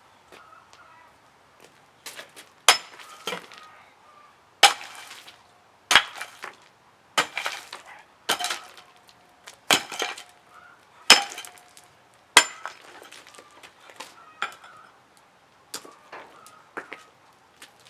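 Sledgehammer breaking up pieces of a concrete slab: about nine heavy blows, one every second and a half or so, each a sharp crack, then a few lighter knocks near the end.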